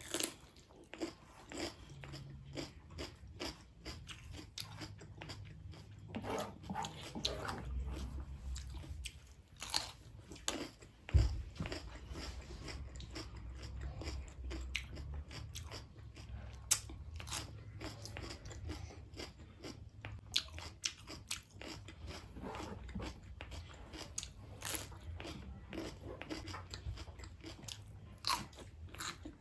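A person chewing and biting food close to the microphone, with a steady run of wet clicks and crunches. A single louder thump comes about 11 seconds in.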